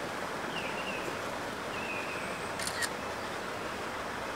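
Steady wind noise on the microphone. A little after halfway, a camera shutter fires with two quick clicks close together.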